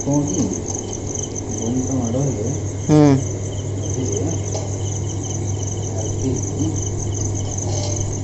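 Crickets chirping steadily, a fast pulsing high trill, over a steady low hum. A brief loud voice-like call about three seconds in, with faint voices now and then.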